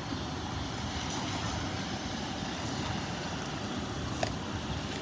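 Steady vehicle engine noise, an even rumble and hiss with no distinct events, with one faint short tick about four seconds in.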